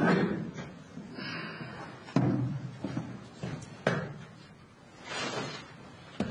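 A handful of sharp knocks and thuds spread a second or two apart, about four in all, like a door and objects being handled and set down. A short hissy rasp comes about five seconds in.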